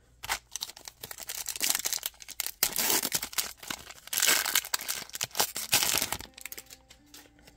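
Foil wrapper of a Bowman baseball card pack being torn open and peeled apart by hand: a run of crinkling and crackling, loudest around the middle, that dies down about six seconds in.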